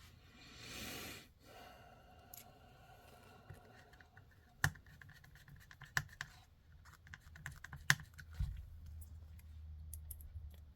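Small screws and hardware parts clicking and rattling as they are sorted by hand, with a brief rustle about a second in and a few sharper clicks later.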